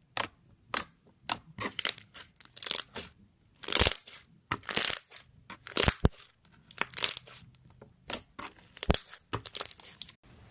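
Slime being squeezed and poked by hand: a run of short, sharp popping and crackling sounds, about one or two a second, with a few longer crackly stretches. The loudest comes about four seconds in.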